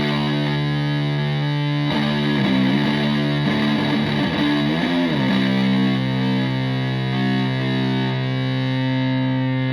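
Stratocaster played through a Tone Bender MKII fuzz pedal into a Fender Twin Reverb–style amp, giving a thick, fuzzy distorted tone. A note is picked about two seconds in and bent and wobbled in pitch for a few seconds. A chord then sustains and rings out to the end.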